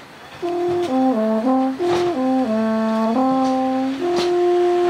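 Alphorn playing a slow melody: after a short pause it steps up and down through several notes, then settles on a long held note near the end.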